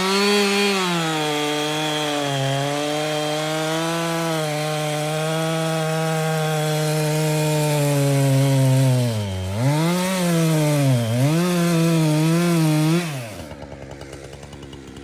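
Husqvarna 372XP two-stroke chainsaw cutting through a large ash log, its engine holding a steady speed under load. About nine seconds in, the engine speed dips and rises several times. Near the end it drops back to idle.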